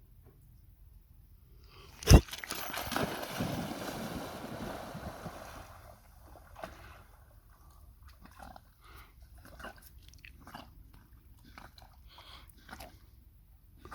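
A loud sudden splash into lake water about two seconds in, followed by a few seconds of water sloshing that dies away, then small scattered splashes and drips from a dog swimming.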